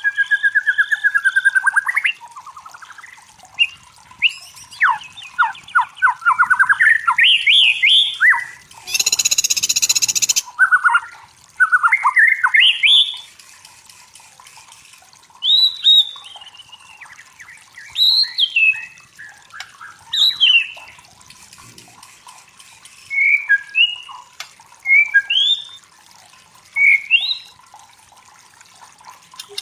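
White-rumped shama singing in separate phrases of clear whistles and fast rising trills, with short pauses between them. A harsh rasping burst comes about nine seconds in.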